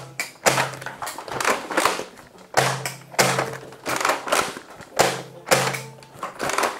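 Nerf FLIP-32 lever-action blaster being cycled and fired in quick succession: a series of sharp plastic clacks and thunks, about two a second, each with a short hollow ring.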